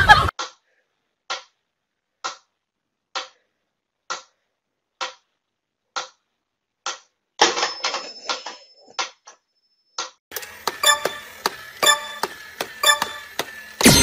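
Mechanical metronome ticking steadily at about one tick a second. Later, a faster, busier run of clicks with steady beeping tones.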